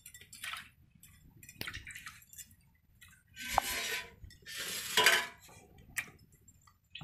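Stainless-steel plates and bowls clinking and scraping as they are handled. There are a few sharp clinks and two longer rattling scrapes in the middle.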